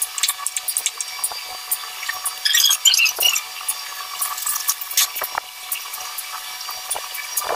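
Hand screwdriver turning a screw into a metal bracket, with small clicks and scrapes of metal parts and a run of squeaky bursts about two and a half seconds in, over a steady hiss.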